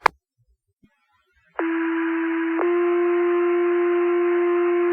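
Two-tone sequential fire pager tone-out over the dispatch radio, alerting Wingham's volunteer firefighters' pagers. A brief radio click comes first. About a second and a half in, a short first tone starts, then steps to a longer, steady second tone about a second later, with radio hiss underneath.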